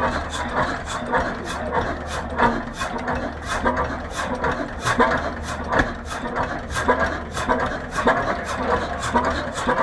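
1925 Hein 18 hp marine hot-bulb engine running, with an even, rapid knocking beat of several strokes a second over a steady low hum.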